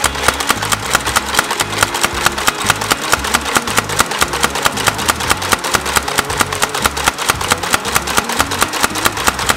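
Mechanical power hammer pounding a hot metal bar flat between its dies, a fast even hammering of about five blows a second, drawing out the blade of a hand-forged fishing spoon.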